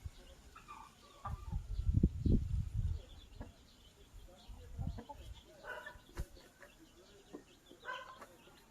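Chickens clucking: short scattered calls from hens, with a louder cluster of calls near the middle and near the end, and faint high peeps throughout. Low rumbling thuds about one to three seconds in are the loudest sound.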